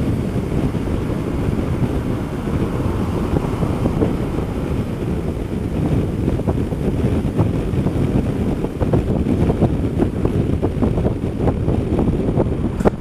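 Wind rumbling and buffeting on an action camera's microphone while riding a Honda Dio scooter in traffic, with road noise underneath. A sharp click near the end.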